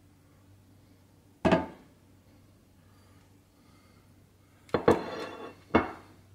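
Hard knocks of kitchenware on a counter: one sharp knock about a second and a half in, then a short ringing clatter near five seconds, followed by another knock.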